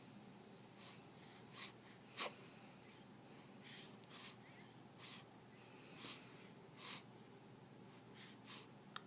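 Short breathy puffs and snorts made for fun, a few quick breaths of air repeated every second or so, with one sharper, louder puff about two seconds in.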